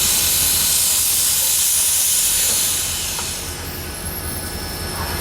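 Steam hissing from steam locomotive #7470, a loud steady hiss that eases off about three seconds in and comes back near the end, over a steady low rumble.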